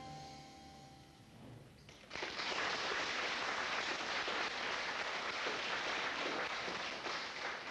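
The last chord of a guitar and violin ensemble rings out and fades. About two seconds in, the audience breaks into steady applause, which tails off near the end.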